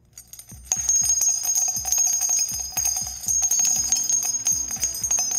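Channel logo intro jingle: bright ringing bells and sparkly ticks over a steady beat. It starts under a second in and cuts off abruptly at the end.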